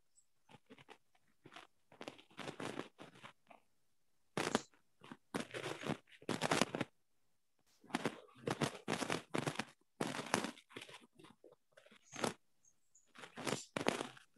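Irregular crunching, rustling noises in many short bursts, each a fraction of a second to about a second long, with brief pauses between them.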